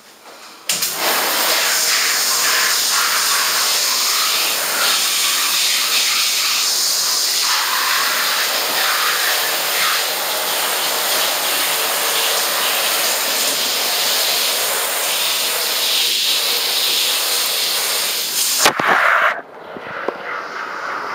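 Shower spray running onto a body and swimsuit: a steady hiss of water that starts about a second in and is shut off near the end.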